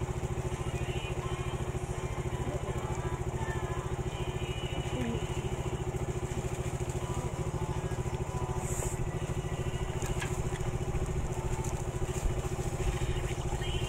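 A small engine running steadily at idle, a low, evenly pulsing drone, with faint eating sounds from noodles being eaten with a fork over it.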